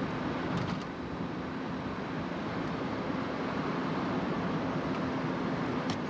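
Steady road and wind noise heard inside a car cruising on an expressway, with a low steady hum and a couple of faint clicks.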